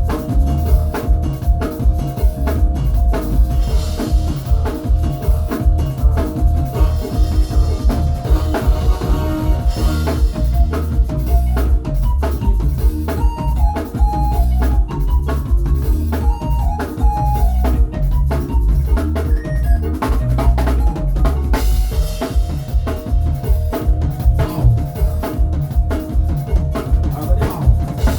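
Drum kit playing a dense, continuous groove with closely spaced hits, over accompanying music that carries deep bass and a held melody.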